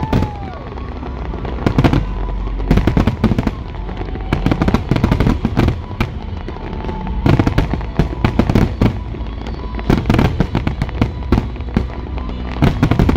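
Large fireworks display: clusters of booming shell bursts and dense crackling come every second or so over a steady low rumble.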